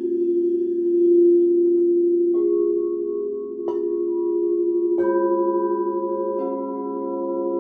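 Crystal singing bowls ringing in long, overlapping sustained tones. A bowl is struck four times, each strike adding a new note to the chord.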